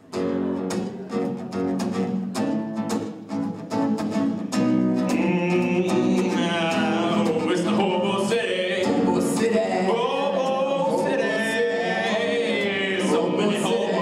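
Live acoustic guitar strumming that starts suddenly, with male singing joining in about five seconds in.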